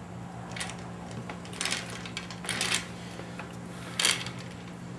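Aerosol cleaner spray can hissing in four short bursts while the inside of an engine block is cleaned out, the last burst near the end the loudest, over a steady low hum.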